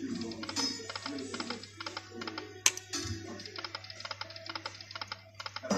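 Lightning Link poker machine's electronic game sounds: a jingly tune with fast, even ticking as the reels spin, and one sharp click about halfway through.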